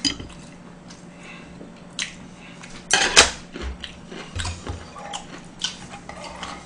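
Metal spoon and chopsticks clinking and scraping against a black earthenware soup pot (ttukbaegi) while eating, a few separate clinks with the loudest about three seconds in.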